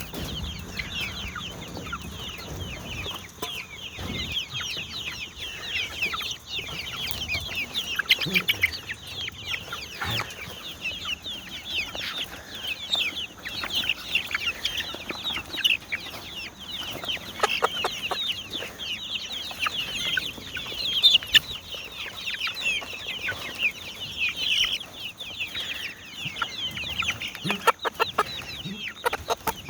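A flock of chickens peeping and clucking without a break, many short falling high calls overlapping. A few short knocks sound about two-thirds of the way through and again near the end.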